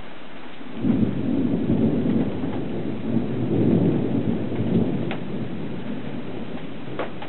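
Thunder: a rumble starts about a second in, rolls on in several swells for about four seconds, then dies away.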